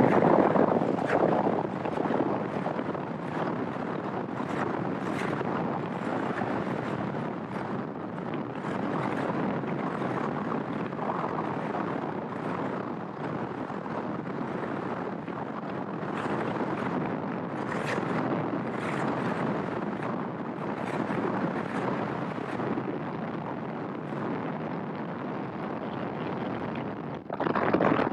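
Bass Cat Eyra bass boat running across open water: a steady rush of wind on the microphone mixed with hull and water noise, with a louder surge just before the end.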